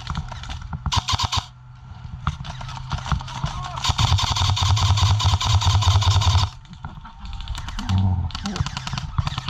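Airsoft electric rifle firing on full auto: a short burst about a second in, a long burst of about two and a half seconds in the middle, and another short burst near the end.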